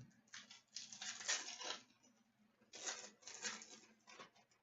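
A trading-card pack being opened and handled: the foil wrapper tearing and crinkling and cards sliding against each other, in two rustling stretches of about a second and a half each.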